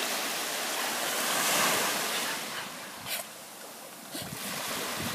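Small ocean wave breaking and washing up onto a sandy beach, the surf swelling to a peak about a second and a half in and then fading.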